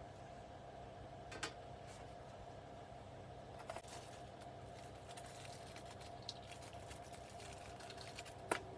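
Quiet room tone with a low steady hum, broken by three faint, short taps.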